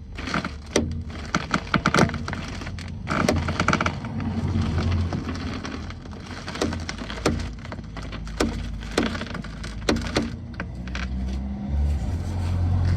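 Irregular sharp clicks and creaks from a 2017 Peugeot 2008's front suspension top mount as the steering wheel is turned, the sign of a faulty top mount.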